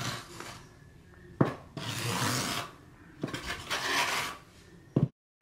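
Notched side of a tile trowel scraping through thin-set mortar on backer board, combing ridges into it: a few scraping strokes about a second long, each begun by a sharp click. The sound cuts off suddenly just before the end.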